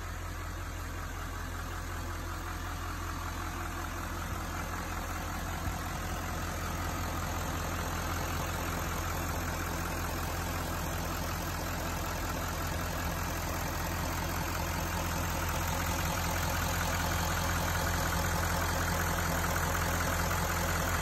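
Duramax 6.6-litre V8 turbo-diesel of a 2016 Chevy Silverado idling steadily, heard from the open engine bay, slowly growing louder.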